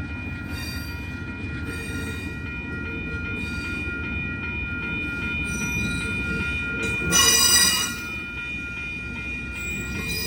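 Amtrak passenger train rolling past with a steady low rumble and a continuous high-pitched wheel squeal. About seven seconds in comes a short, louder, higher squeal.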